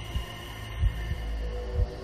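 Soundtrack pulse: a low heartbeat-like thump about once a second, some of them doubled, over a steady droning hum.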